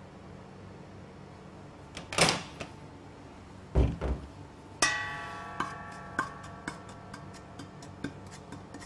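Kitchen utensils handled at the stove: a brief scrape and a couple of dull knocks, then a metal clang that rings on and fades. After it, a wooden spatula taps against a large stainless-steel pot about twice a second as sugar is stirred, melting for caramel.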